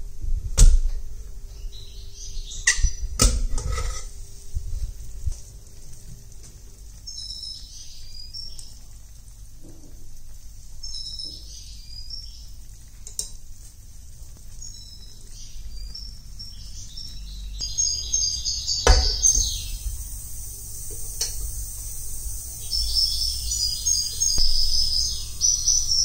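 A few sharp clinks of kitchen utensils or cookware over a low rumble, with short high bird-like chirps coming and going in the background.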